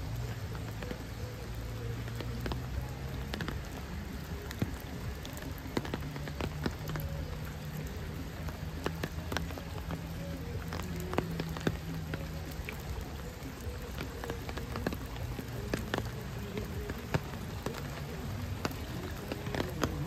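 Steady rain falling, with individual raindrops striking close by as scattered sharp ticks, over a low steady hum.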